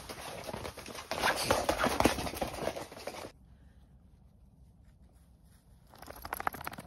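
Rustling and shuffling footsteps on a tent's groundsheet and sleeping mats, a dense crackle of small clicks that cuts off suddenly about three seconds in. After that the sound is quiet, apart from a brief patter of clicks near the end.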